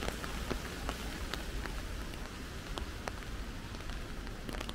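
Rain falling, a steady hiss with scattered drops ticking sharply close by at irregular moments.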